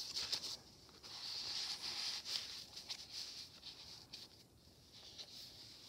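Soft paper rustling and sliding as a loose old book page is slipped into a pocket of a handmade paper journal and pressed flat by hand, fading out about halfway through.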